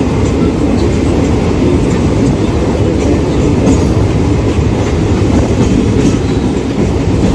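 Mumbai suburban local train in motion, heard from on board: a loud, steady rumble of wheels on the rails with faint clicks scattered through it.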